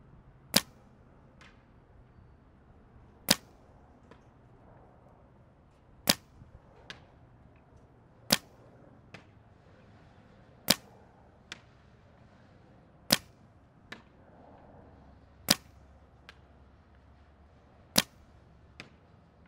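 Dye DAM paintball marker firing First Strike rounds in slow aimed semi-automatic shots, eight sharp pops about two and a half seconds apart. Each pop is followed under a second later by a faint tap.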